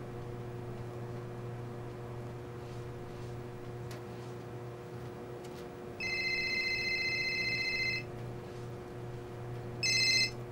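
Electronic telephone ringing: one two-second trill about six seconds in, then a second ring that stops after half a second near the end. A steady low hum runs underneath.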